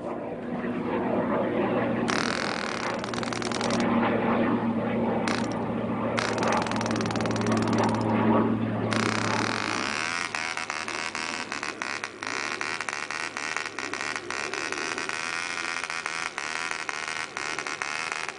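Clanford Clan 0.48 cc model diesel engine running on a test stand, swinging a 7x4 nylon propeller. It runs steadily and cleanly now that congealed castor oil has been cleared from its cylinder. Its note changes about halfway through.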